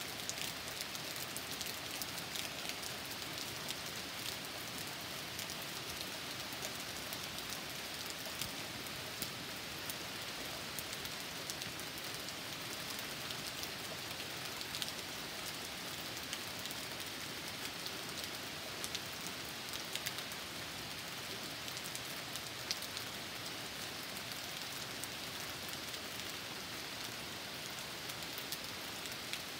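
Steady rain from a passing thunderstorm, with many small, sharp drop ticks scattered through it.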